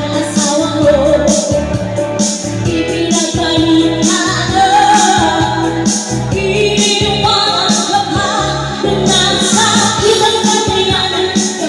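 A woman singing karaoke over a backing track with a steady beat.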